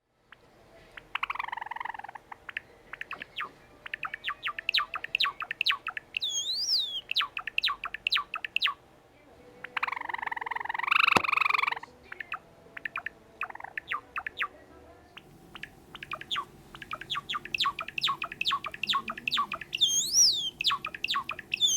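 Java sparrow singing: rapid runs of short clicking notes, each phrase ending in a high whistle that rises and falls, heard about six seconds in and again near the end, with a couple of harsh calls between. This is the bird's first try at its song, still not quite fully sung.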